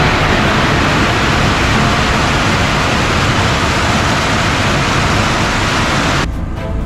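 A long string of firecrackers going off in a continuous dense crackle, cutting off suddenly near the end.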